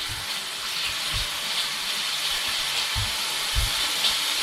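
Crushed garlic and rosemary sizzling in hot olive oil in a frying pan: a steady hiss that grows slightly louder, with a few dull knocks.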